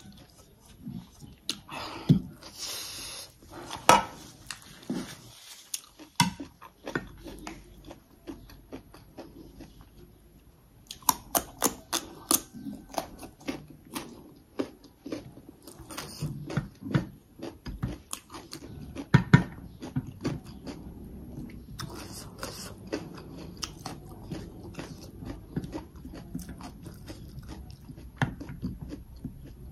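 A person eating rice and chicken curry by hand: chewing and biting, with many short sharp mouth clicks and crunches.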